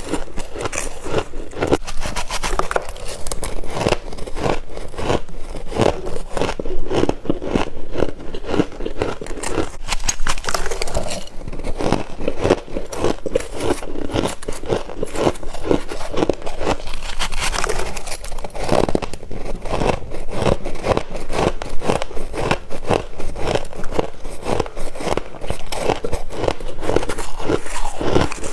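Freezer frost being crunched and chewed close to the microphone: a loud, dense, continuous crackle of many small rapid crunches.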